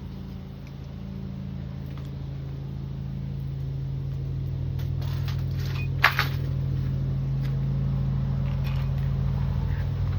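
A steady low engine-like hum that grows gradually louder, with a single sharp click about six seconds in.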